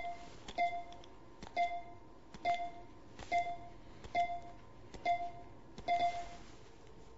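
PulStar computerized chiropractic adjusting instrument running its spinal analysis: a sharp click followed by a short beep, eight times at a steady pace of a little more than one a second.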